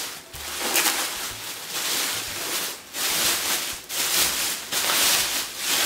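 Thin plastic packaging bag crinkling and rustling as it is handled and opened, in irregular surges several times a second.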